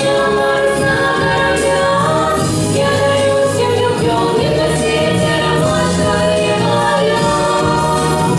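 A vocal ensemble singing in harmony over a musical backing track, holding long sustained notes.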